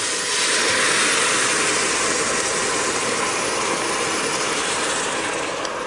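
Red wine poured into a hot stainless steel pot of seared beef and vegetables, sizzling and hissing steadily as it deglazes the pan. The hiss starts suddenly and eases slightly toward the end.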